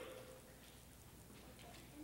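Near silence: room tone during a pause for silent prayer.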